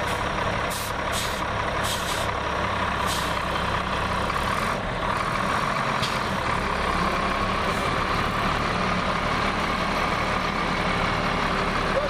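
Bitumen distributor tanker truck running steadily with a steady whine over its engine, plus a few short hisses in the first three seconds and one more about halfway through.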